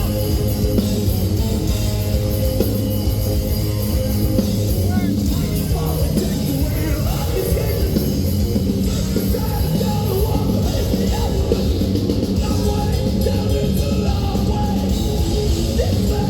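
Progressive death metal band playing live through an arena PA: distorted guitars and bass over fast, dense drumming, with vocals over the top.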